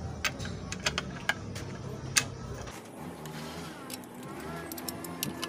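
Sharp metallic clicks and clinks of a spark-plug spanner and its tommy bar against the engine casing as a spark plug is screwed into the threaded hole, several in the first two seconds and fainter ones near the end. A low background hum cuts out about halfway through.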